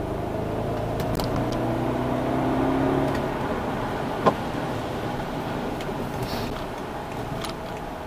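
BMW 650i's N62 V8 heard from inside the cabin, pulling under acceleration with its pitch rising slowly for about three seconds, then easing off. A single sharp click about four seconds in.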